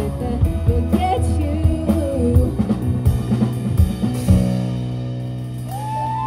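Live band of female vocalist, keyboard, drum kit and upright bass playing a song, the singing dropping out about two and a half seconds in. A little past four seconds a cymbal crash lands and the band holds a final chord that rings on. Whoops from the audience rise and fall near the end.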